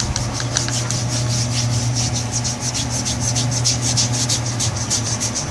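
Hands rubbing lotion into the skin: a rapid back-and-forth swishing of about four strokes a second.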